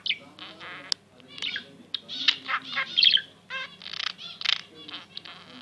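Pet budgerigar chattering and warbling: a quick run of short chirps mixed with buzzy, scratchy notes.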